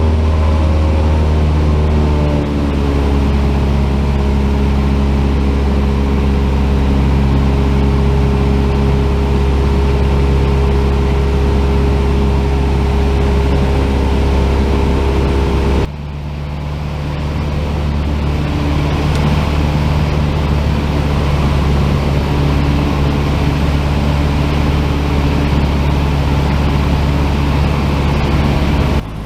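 Cabin noise of a Cessna 172's piston engine and propeller, running as a loud, steady drone. Its pitch drops about two seconds in as power comes back. About 16 seconds in it cuts abruptly to a slightly quieter steady drone.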